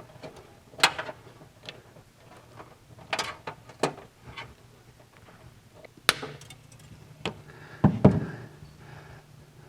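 Scattered sharp clicks and light knocks of hand work on an air-cooled VW engine, as the choke and ignition points wires are disconnected.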